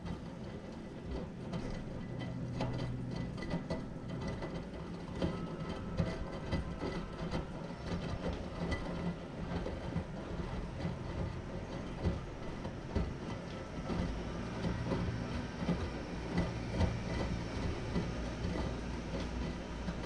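Front-loading washing machine in its wash phase: the drum turns, sloshing soapy water and tumbling the wet laundry with irregular splashes and knocks. Under it runs a motor hum that fades after about four seconds and comes back in the last third.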